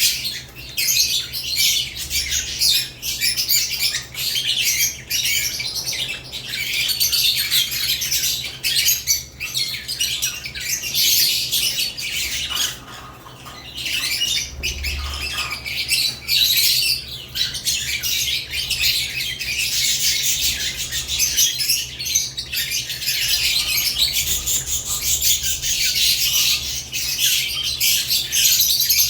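Several lovebirds chattering and squawking without a break, a dense mix of high-pitched chirps that eases off briefly about halfway through. A steady low hum runs underneath.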